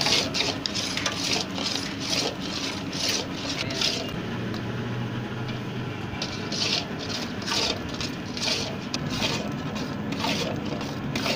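Long-handled metal spatula scraping and stirring a thick khoya-and-sugar mixture around a large metal karahi, in rasping strokes about once a second with a short pause midway. The mixture is being cooked down for barfi and kept moving so it does not stick and scorch.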